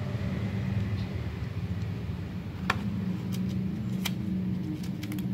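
Steady low machine hum in the background, with a few light clicks and taps from handling a pocket knife and its hinged presentation box. There is a sharp click about two and a half seconds in and a louder one about four seconds in.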